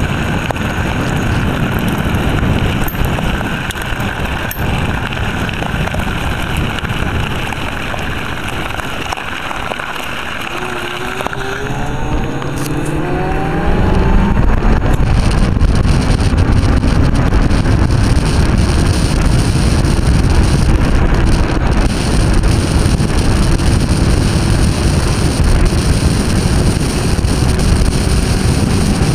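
Silenzio 45 electric scooter riding, with wind on the microphone and tyre rumble from the gravel track. About twelve seconds in, a faint electric-motor whine rises in pitch as the scooter speeds up. The ride then settles into a louder, steady rush on the asphalt, with a faint whine held underneath.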